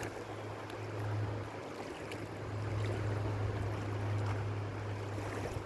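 River water flowing, with a steady low hum underneath.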